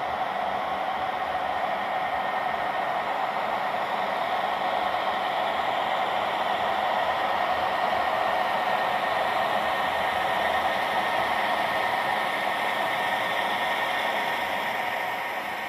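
HO-scale model freight train of Santa Fe zebra-stripe diesel locomotives and boxcars rolling past, making a steady whirring hiss from the locomotive motors and the wheels on the track. The hiss grows a little louder midway as the train goes by.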